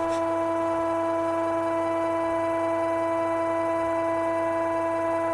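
CNC router's Z-axis stepper motor whining at one steady pitch as it slowly feeds the bit down during a G38.2 probing cycle, toward an aluminium touch plate.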